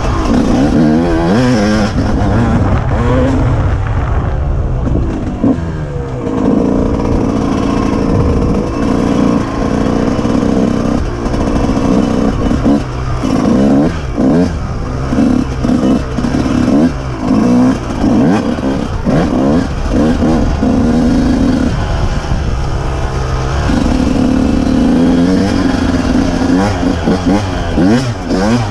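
Dirt bike engine under way, revving up and down over and over as the throttle is opened and rolled off, with frequent short dips in between.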